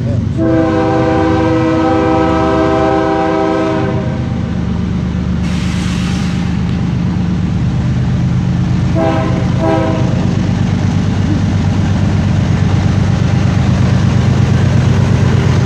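BNSF freight train's diesel locomotive horn sounding one long blast of several notes at once, lasting about three and a half seconds, then two short blasts about nine seconds in. Under it the diesel locomotives run with a steady low rumble that grows louder as the train approaches.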